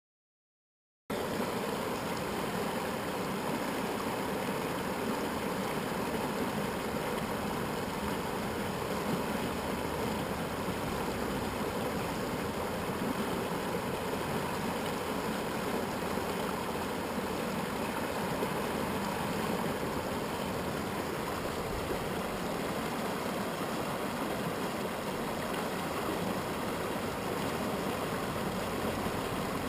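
Truckee River flowing shallow over rocks: a steady rush of running water that cuts in about a second in and holds an even level.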